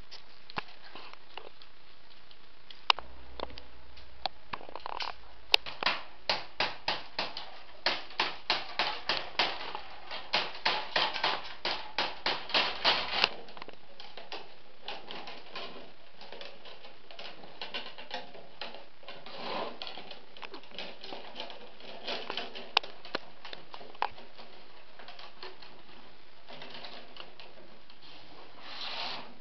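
Willow rods clicking and creaking as stakes are pushed into a round wicker basket base and bent upright: a run of sharp clicks at about two or three a second for some ten seconds, then scattered single clicks.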